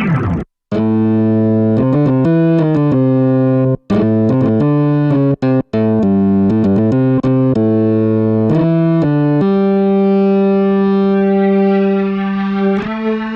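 Hammond SK PRO keyboard playing a melody on one of its presets, with a few short breaks between phrases and a long held note near the end.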